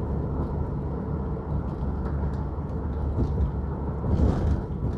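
Steady low rumble of a car's tyres and engine heard from inside the cabin while driving over an uneven concrete road surface, with a brief louder rush about four seconds in.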